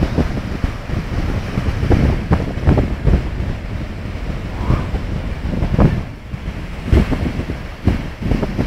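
Caspian Sea surf washing onto a beach, with wind buffeting the microphone in uneven low rumbling gusts.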